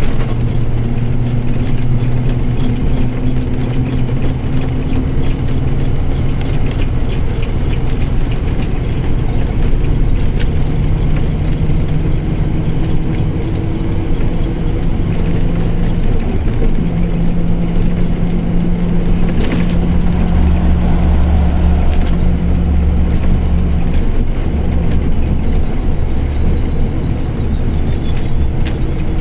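Mercedes-Benz OF1722M bus chassis under way, with its six-cylinder diesel engine and driveline, including the rear differential, running steadily. The engine and drivetrain tones shift in pitch several times as speed changes. Two brief rushing noises come about two-thirds of the way through.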